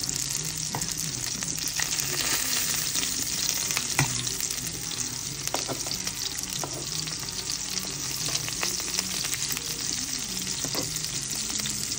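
Semolina-coated kingfish steaks and prawns shallow-frying in hot oil in a pan: a steady sizzle. A few sharp clicks of metal tongs against the pan break through as the prawns are turned over, the loudest about four seconds in.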